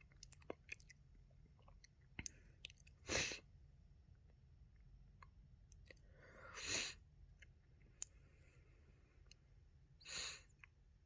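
A person sneezing three times from allergies, about three and a half seconds apart, the middle sneeze led in by a short drawn-in breath. Faint small clicks fall between them.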